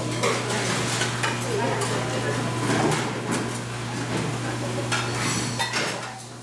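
Stainless steel bowls clinking and clattering against each other and the sink during dishwashing, many quick metallic knocks over a steady low hum.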